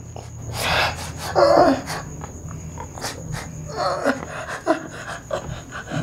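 A man gasping and groaning in pain, with several short, strained breaths, some ending in brief falling moans.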